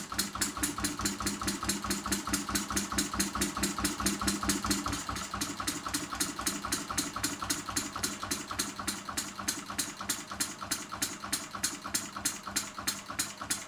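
Single-cylinder four-stroke model diesel engine on kerosene running under load with a rapid, even beat. With late injection timing set, it runs without knocking. A steady hum behind it stops about five seconds in.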